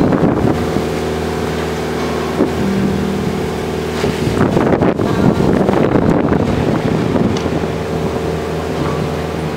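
A boat's engine running at a steady speed under rough wind noise on the microphone and the rush of choppy sea past the hull. The wind and water swell louder about halfway through.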